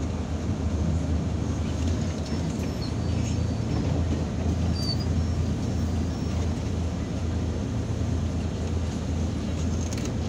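Irisbus Citelis 12 m city bus engine idling steadily, heard from inside the passenger cabin while the bus stands.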